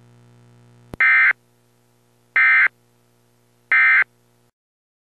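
Emergency Alert System end-of-message code: three short, loud bursts of SAME digital data tones, evenly spaced about a second and a half apart, marking the close of the alert. A faint steady hum sits under them, with a click just before the first burst, and the hum stops shortly after the third.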